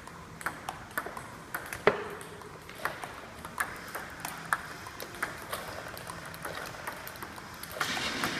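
Table tennis rally: a celluloid-type ping-pong ball clicking off bats and the table about twice a second, with one louder hit about two seconds in.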